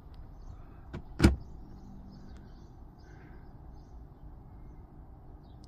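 Plug being pushed into a mains socket: a light click about a second in, then a sharp, louder click just after it, over a faint low hum.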